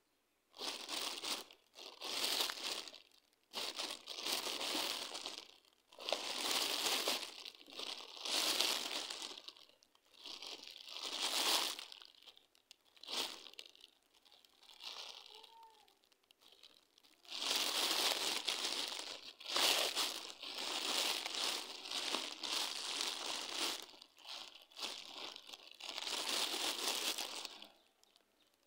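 Plastic snack wrappers crinkling in repeated bursts as a macaque monkey grabs and handles a pile of wrapped snack packets, with a quieter stretch about halfway through.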